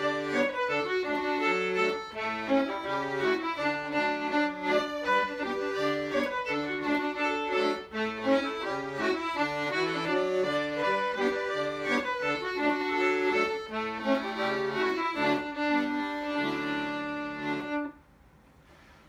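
Button accordion and fiddle playing a bouncy traditional Swedish tune together, with the accordion's bass notes keeping the beat. The music ends on a held chord and stops about a second before the end.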